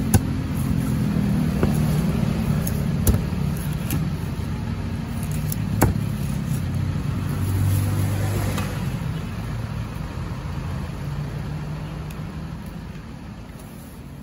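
Heavy cleaver chopping fish on a wooden block, a few sharp knocks in the first six seconds, over the steady hum of a motor-vehicle engine running. The whole sound fades out over the last few seconds.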